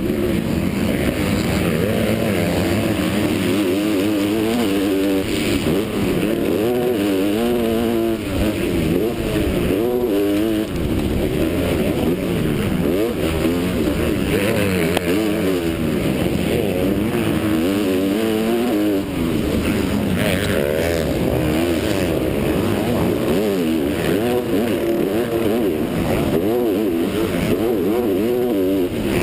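Motocross bike engine at race pace, revving up and falling off again and again as the rider shifts and brakes, under steady rushing wind noise.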